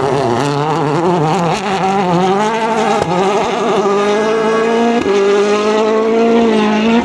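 Citroën DS3 WRC rally car's 1.6-litre turbocharged four-cylinder engine accelerating hard, its note climbing steadily. About five seconds in it shifts up with a brief break in the sound and keeps climbing.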